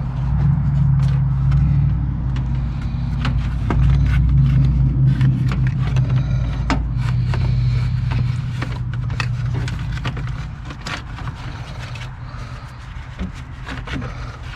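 Clicks, knocks and scrapes of a plastic radiator cooling fan assembly being handled and fitted into place, over a steady low hum whose deepest part drops away about halfway through.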